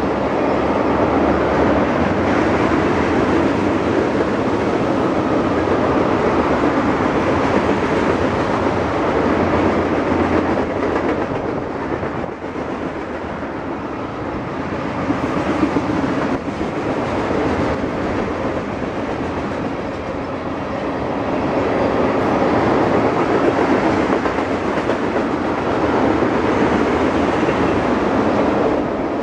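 Oil train tank cars rolling past at track side: a steady rumble and clatter of steel wheels on the rails, easing a little twice midway.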